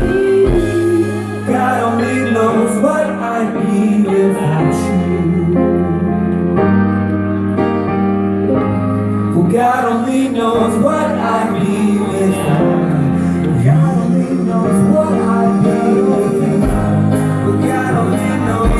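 Live band playing a slow pop ballad, with several voices singing sustained harmonies over held bass and keyboard notes.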